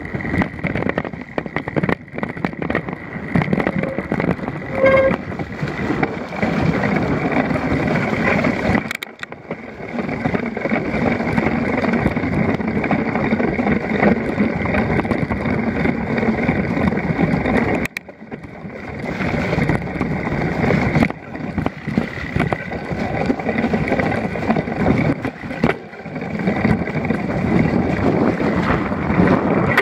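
Mountain bike ridden over a wet, muddy, rocky trail, heard from a camera on the bike: a continuous rumble of tyres on mud and stones, with many small knocks and rattles from the bike over the rough ground. The noise drops away briefly twice, about nine and eighteen seconds in.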